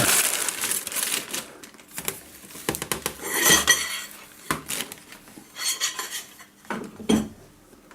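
Glass shards and the metal base of a broken light bulb clinking and rattling as they are handled. There are scattered sharp clinks and one brief ringing chink about three and a half seconds in.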